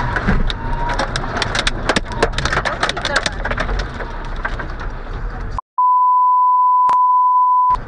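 Road and cabin noise from a car driving at motorway speed, with scattered crackling clicks. About five and a half seconds in, all other sound drops out for a steady high-pitched beep lasting about two seconds, a censor bleep laid over the soundtrack, which then cuts off.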